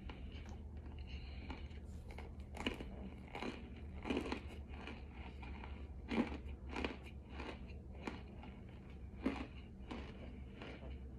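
A person biting and chewing a crunchy cornstarch blend close to the microphone: irregular sharp crunches about every half second to a second, the loudest around 4, 6 and 9 seconds in.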